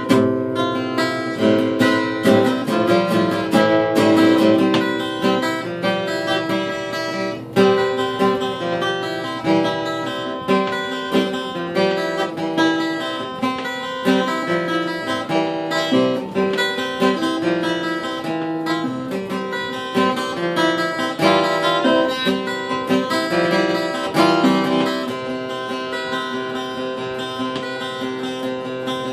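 Solo steel-string acoustic guitar playing an indie rock song, strummed chords mixed with picked notes that ring on.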